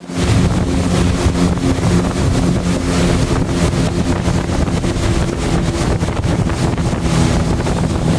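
Motorboat engine running steadily with a low hum, under heavy wind buffeting on the microphone.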